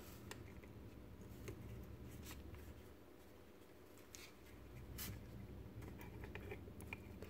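Faint handling sounds of a Robi robot's servo motor being pushed into its plastic leg housing: light rubbing of plastic on plastic with a few scattered small clicks.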